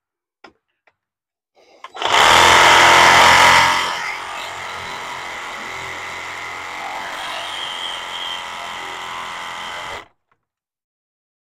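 Handheld electric power tool running for about eight seconds: loudest for its first two seconds, then running steadier and quieter until it cuts off.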